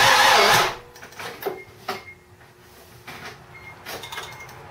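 Mazda RX-7 FD3S's 13B twin-turbo rotary engine being cranked by the starter, with a pitch that rises and falls about twice a second. The cranking stops under a second in, leaving a quiet stretch with a few sharp clicks.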